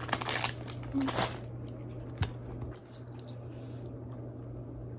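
Crackers crunching as they are bitten and chewed close to the microphone, in a few loud bursts in the first second and a half, followed by one sharp click about two seconds in.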